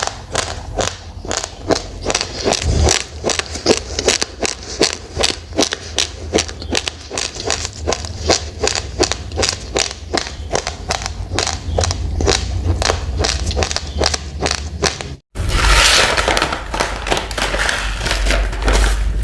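Raw rice grains being chewed: sharp crunches about three a second over a low rumble. About fifteen seconds in, the sound cuts off abruptly and a louder, rougher noise takes over.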